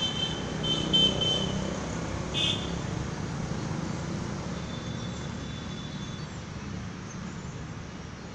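Steady low rumble of road traffic, fading slightly, with a few short high-pitched tones in the first second or so and a brief sharp sound about two and a half seconds in.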